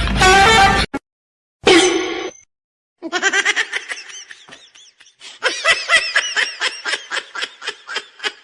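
A person laughing hard in a long run of short, rapid bursts through the second half, after two brief vocal sounds near the start.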